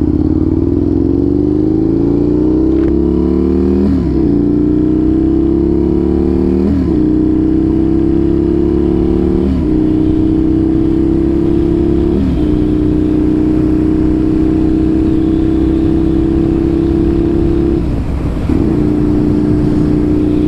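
Aprilia RSV 1000R's V-twin engine through a loud aftermarket exhaust, accelerating through the gears: the pitch climbs and drops sharply at each of four upshifts, then holds steady while cruising, with a brief throttle lift near the end.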